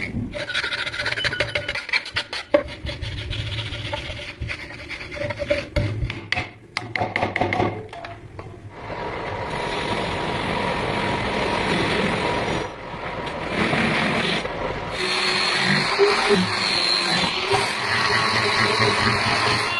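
A knife blade being worked with an abrasive: quick repeated scraping strokes for the first eight seconds or so, then a steady, continuous rasping from about nine and a half seconds on.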